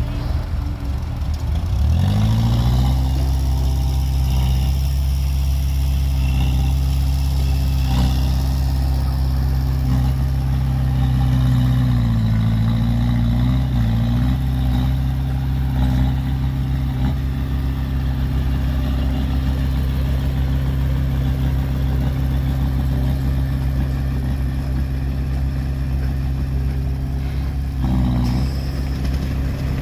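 An engine revs up over the first few seconds, then runs at steady, raised revs. Its pitch wavers briefly around the middle and dips once near the end.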